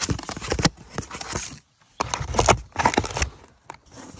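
Cardboard shipping box being opened by hand: its flaps pulled back with scraping and rustling of cardboard, in two bursts, the second starting about two seconds in.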